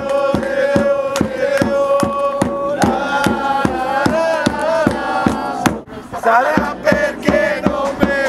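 Background music: a song with male voices singing long held notes over a steady drumbeat of about three beats a second.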